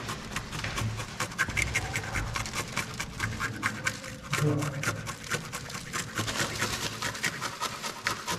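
A bottle cap scraping the scales off a grouper inside a plastic bag, in quick repeated rasping strokes.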